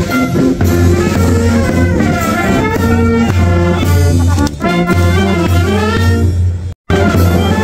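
Brass band music with trumpets and trombones playing melodic lines over a heavy steady bass. It cuts out for an instant near the end, then resumes.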